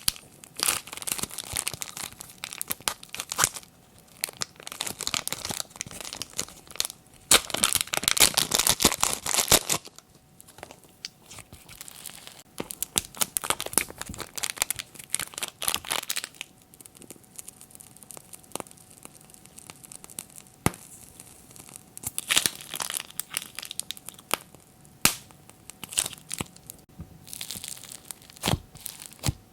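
Glossy slime being squished and stretched by hand: dense sticky crackling and clicking. It is loudest for a couple of seconds about a quarter of the way in, then thins to scattered single clicks.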